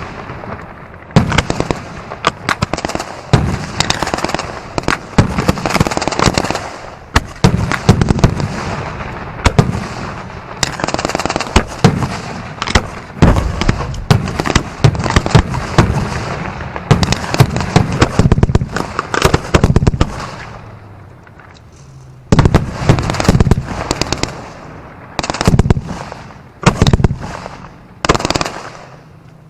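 Pyrotechnic display heard close up: rapid runs of bangs and crackling, one burst on top of another. It eases off about twenty seconds in, and a new run of bangs starts about two seconds later.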